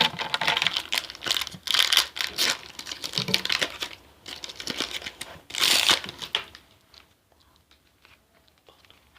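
Crinkling and tearing of a foil Pokémon trading-card booster pack wrapper as it is torn open, stopping about six and a half seconds in.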